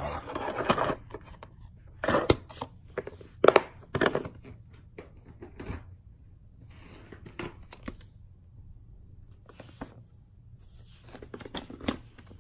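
Plastic VHS clamshell cases being handled: several sharp clicks and knocks, the loudest about three and a half seconds in, with rustling in between.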